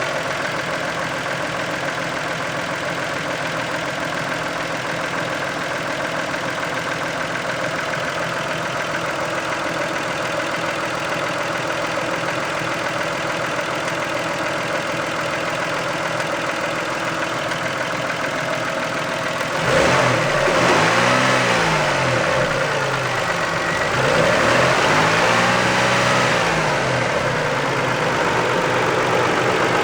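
Toyota 2VZ-FE 2.5-litre V6 idling steadily, then revved twice, about twenty seconds in and again a few seconds later, each rev rising and falling back to idle.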